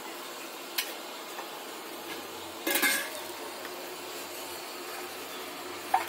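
Metal spoon clinking on a flat dosa griddle and a steel pot while potato filling is spooned onto dosas, over a steady faint sizzle: a sharp tap under a second in, a louder clatter about three seconds in, and another sharp tap near the end.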